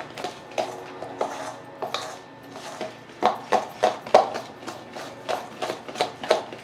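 A metal spoon clinking and scraping against a stainless steel mixing bowl while flour is stirred into beaten egg and sugar. The clinks come in quick, uneven strokes, loudest and fastest in the second half.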